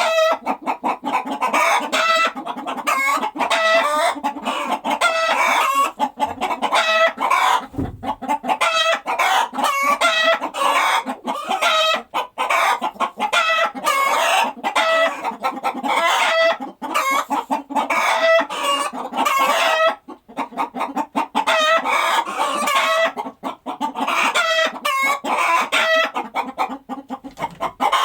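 A flock of chickens clucking and calling continuously, many short calls overlapping with no let-up.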